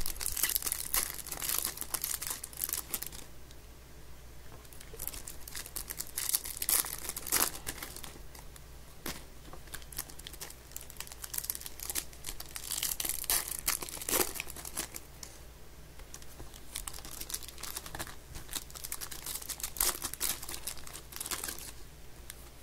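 Foil trading-card pack wrappers crinkling and tearing as packs are opened by hand, in several bursts of crackling with quieter handling between.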